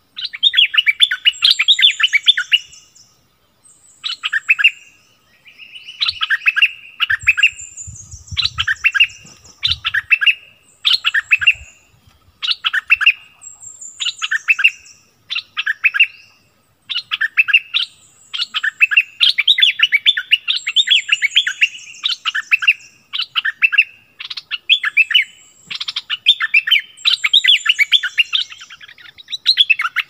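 Caged decoy bulbul (merbah lekir) singing loud, rapid chattering phrases over and over, with brief pauses between them and thin high whistled notes above.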